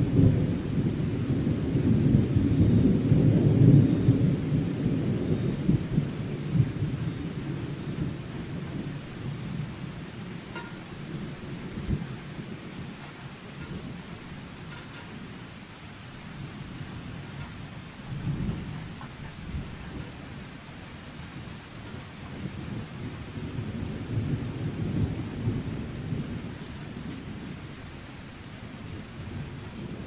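Thunderstorm: thunder rumbling over steady rain. A long rumble fades away over the first several seconds, brief thumps of thunder come about twelve and eighteen seconds in, and a second, softer rumble swells and fades near the end.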